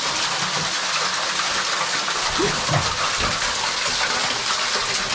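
Small underground waterfall in a limestone cave: water falling and splashing steadily onto rock.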